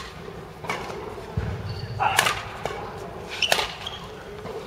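Badminton rackets striking the shuttlecock in a rally: three sharp hits about a second and a half apart.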